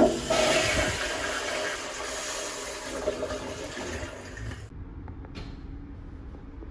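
Sensor-triggered flush-valve toilet flushing. A loud rush of water is strongest at the start, tapers off, and cuts off sharply about four and a half seconds in.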